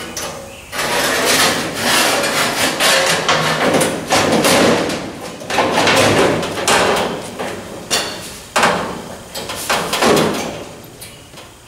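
Flat sheet-steel panels clanging, scraping and rattling as they are handled and knocked against a pickup truck's steel cab, with many sharp knocks. The noise dies away near the end.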